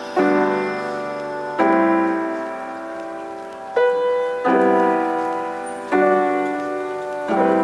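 Background music: a slow piano intro, sustained chords struck about every one and a half seconds and left to ring out.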